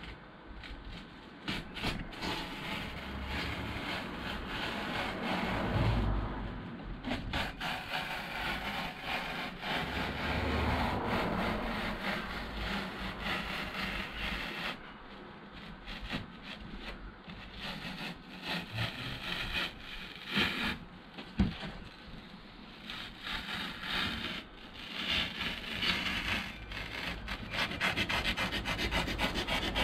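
Plasterboard knife blade scoring a sheet of closed-cell polyurethane foam along the edge of a timber template. It makes a scratchy, scraping sound in repeated drawn strokes, which turn into quick short strokes near the end.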